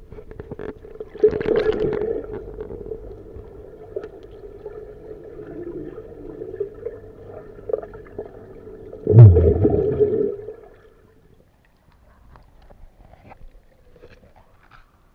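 Muffled underwater sound in a swimming pool, heard by a camera held under the water: sloshing and a steady hum, with a loud gurgling burst of bubbles about nine seconds in.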